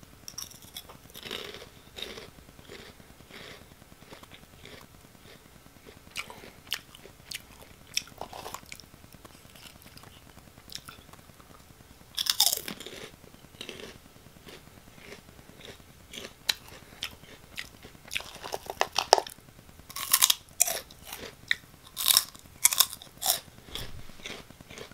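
Crunchy Oh!Gamja potato stick snacks being bitten and chewed close to the microphone: irregular crisp crunches, with louder runs of crunching about halfway through and again in the last third.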